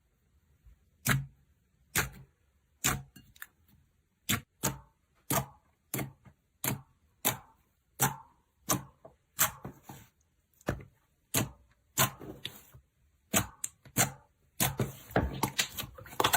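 Slime being pressed and squished, making sharp clicking pops about one to two a second that come faster and run together into crackling near the end.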